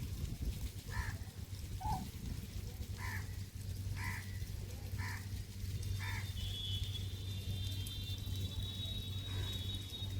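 A bird calling, six short calls about a second apart, over a steady low hum. From about six and a half seconds a thin, high, steady buzz joins in.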